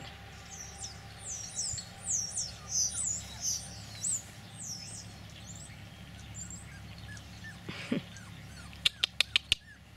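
A songbird singing a quick run of high, sweeping chirps over the first few seconds. Near the end come five sharp clicks in quick succession, the loudest sound here.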